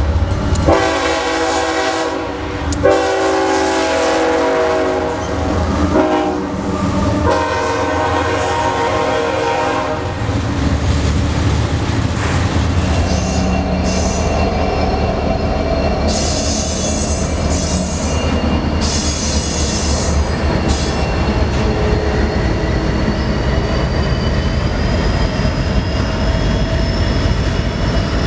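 Diesel freight locomotive, the Rock Island heritage unit, sounding its multi-note air horn in a long, long, short, long crossing pattern as it approaches. Then the locomotives pass with a steady engine rumble and the freight cars roll by with rhythmic wheel clatter. A thin wheel squeal rises near the end.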